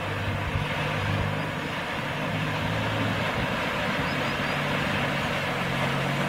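Toyota FJ Cruiser's engine running steadily at low revs as the SUV wades through a river, with water rushing and splashing around its wheels.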